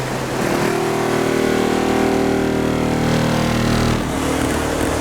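Competition car-audio system's subwoofers playing loud, sustained bass notes on a timed SPL run. The notes shift about half a second in and again near four seconds.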